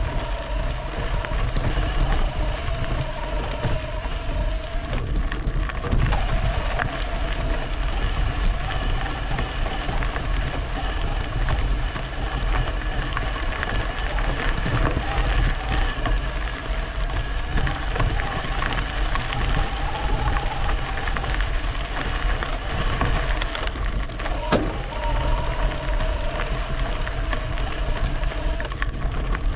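E-bike riding along a trail: wind buffeting the microphone with a heavy low rumble, scattered clicks and rattles from the bike over bumps, and the electric motor's whine drifting up and down in pitch as speed changes.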